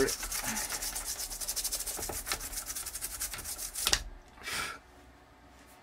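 Small brush scrubbing a circuit board with isopropyl alcohol in rapid back-and-forth strokes, cleaning flux residue off fresh solder joints. The scrubbing stops about four seconds in, followed by one short brushing swish.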